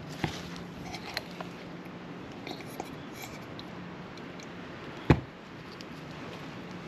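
Handling noise from gloved hands working a rubber CV boot onto a greased CV joint housing: light rubbing and a few small clicks. A single sharp knock about five seconds in comes as the axle is set down on the wooden workbench. A low steady hum runs underneath.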